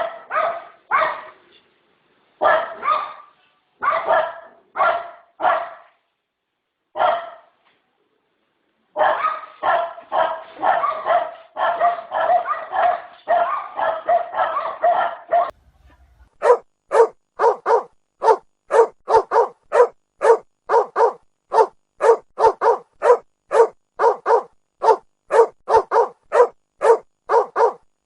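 A dog barking, first in short volleys with pauses, then in a fast continuous run for several seconds. Just past halfway the sound changes to another dog barking steadily, about two barks a second.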